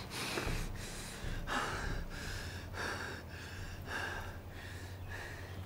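A woman crying with a quick, uneven run of gasping sobbing breaths, about two a second.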